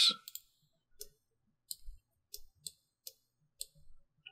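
Computer mouse clicking while objects are selected in 3D software: a run of about eight short, sharp clicks, unevenly spaced.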